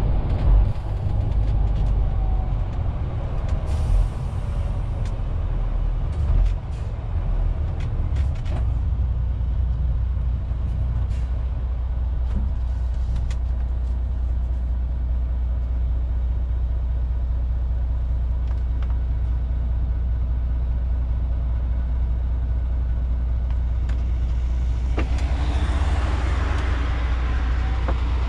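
Inside the cab of a MAN TGX 470 truck under way: its six-cylinder diesel gives a steady low drone over road noise. A few knocks and jolts come in the first several seconds, after which the drone runs even. A louder rush of tyre and wind noise builds near the end.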